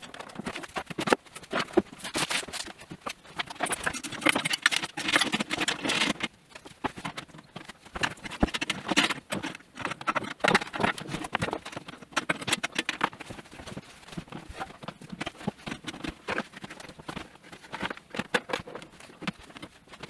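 Rapid, irregular clicks, taps and rustling of hard plastic and packaging being handled, busier in two stretches.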